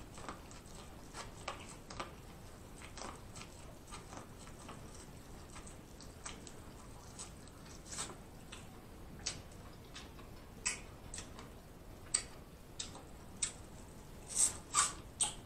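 Biting and chewing corn on the cob: scattered crisp clicks and crunches as kernels are bitten off the cob, with a louder run of bites near the end.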